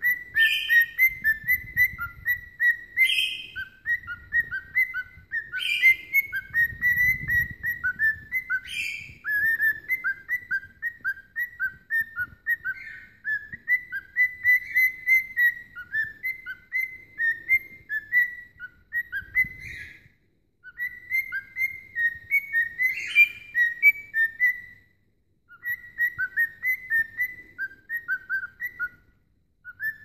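Cinnamon cockatiel whistling a long warbling song of quick chirpy notes, with a few louder, higher notes in the first third and short breaks past the middle.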